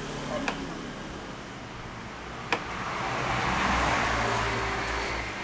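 Ricoh 4000 photocopier running a copy: light clicks, then a whir that swells and fades over about two and a half seconds as the page is scanned, over the machine's steady hum.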